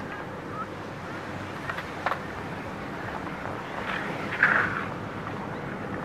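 Steady wind noise on the microphone, with a few sharp clacks and, about four seconds in, a brief loud scrape of a skateboard in a concrete skate bowl.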